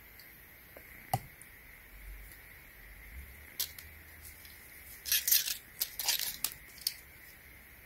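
A plastic reel of LED strip light being handled. A couple of light clicks come first, then a quick cluster of sharp rustling and scraping sounds about five seconds in, lasting a couple of seconds.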